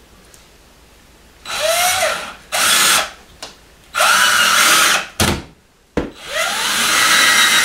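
Power drill-driver run in four short bursts, each opening with a rising whine as the motor spins up, driving screws through the drywall into a wooden backing board.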